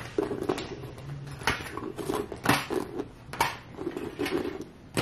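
Paper shopping bags and gift boxes being handled, with sharp rustles and knocks about once a second as items are packed back inside.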